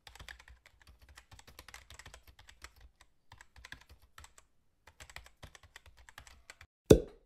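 Typing sound effect: a rapid run of key clicks with two brief pauses, ending in one much louder single thump near the end.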